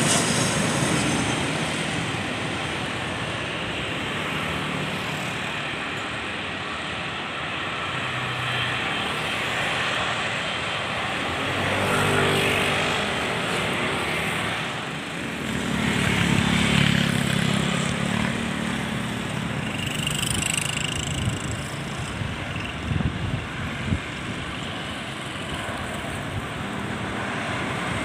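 Aircraft engines, a steady rushing roar that swells twice and eases, with a faint low hum under it.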